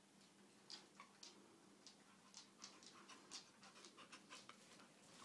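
Staffordshire bull terrier panting quickly and faintly, short breaths about four a second: fear panting, the dog being petrified of fireworks.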